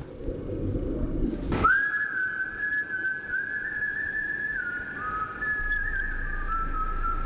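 A low rumble, cut by a sharp hit about a second and a half in. Then a single thin, high whistling tone is held and steps slowly down in pitch, like an eerie whistled line in a horror score.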